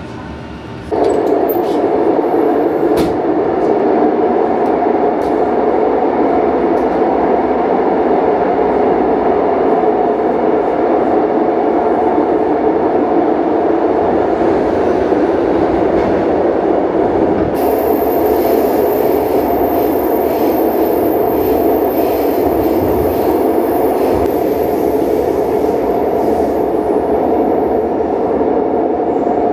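Steady noise of a Renfe 450-series double-decker commuter train heard from inside the carriage, coming in abruptly about a second in and holding level throughout.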